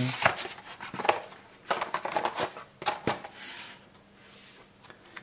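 Hands handling trading cards and their cardboard packaging on a tabletop: a series of light taps and knocks over the first three seconds, then a short scraping slide.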